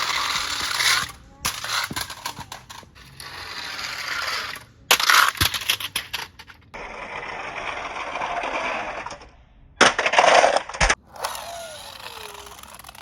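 Toy cars rolling down a slide with a rattling, scraping rumble, sharp clatters where they land or knock. The sound comes as several separate runs that start and stop abruptly.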